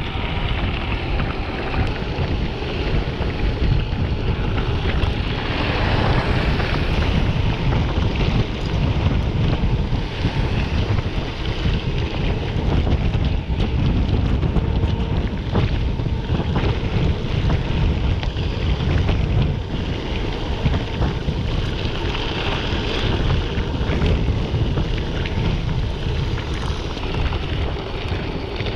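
Wind buffeting the microphone while a mountain bike rides fast over rough trail, with the bike rattling and clicking over the bumps.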